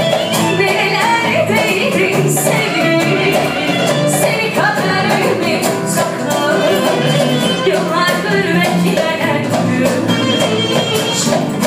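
Live band music: a woman singing to strummed acoustic guitar, with drum hits keeping time.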